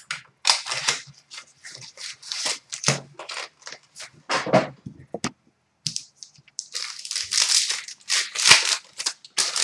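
Plastic wrapping on a hockey card pack being torn open and crinkled, with irregular crackling rustles as the pack is opened and the cards are handled.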